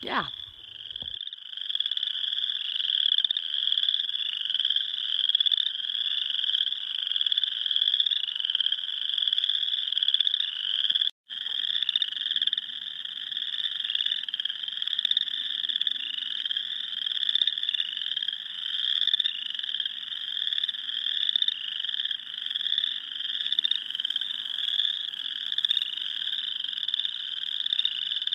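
A dense spring chorus of frogs calling, many overlapping rising trills repeating without pause. The chorus drops out for an instant about eleven seconds in, then carries on.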